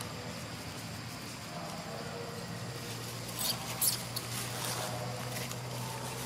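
A baby long-tailed macaque giving a few short, high-pitched squeals, loudest about three and a half seconds in, with fainter squeaks after.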